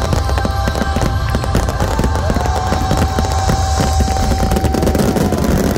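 Fireworks going off in a dense, rapid barrage of bangs and crackles, with a long held note joining in about two seconds in and fading near the end.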